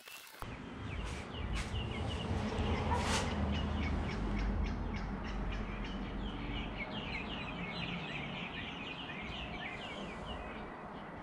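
Many small birds chirping in a busy, continuous chorus over a low steady rumble, with one sharp knock about three seconds in.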